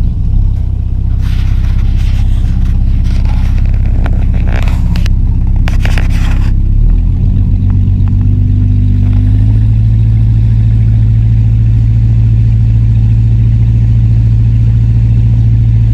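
Motorboat engine running steadily with a low rumble. About seven seconds in, its note shifts up and settles at a steady higher pitch. Several seconds of scraping, crackling noise come over it in the first half.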